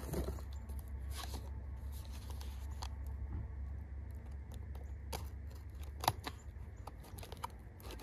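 Paper wrapping rustling and tearing as a wrapped axe head is unwrapped by hand, with scattered sharp crackles, the loudest about six seconds in.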